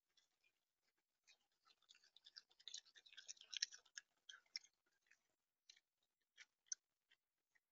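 Raccoon chewing food at a bird feeder: a faint run of small crunching clicks that grows busiest a few seconds in, then thins out to a few scattered clicks.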